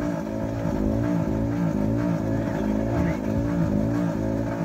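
A fishing boat's engine running steadily, its note wavering in an even rhythm about twice a second.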